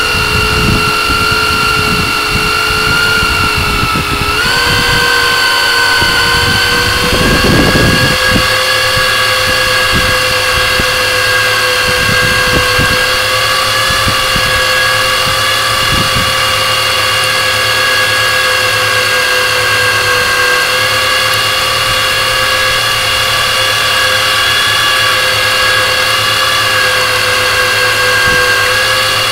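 Fire boat's engine running under way, with a steady high-pitched whine that steps up slightly in pitch about four seconds in and then holds. Wind buffets the microphone during roughly the first eight seconds.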